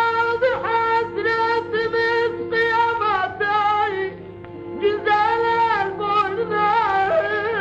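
Music in a Middle Eastern style: an ornamented melody that slides and wavers in pitch, in short phrases over a steady held drone note.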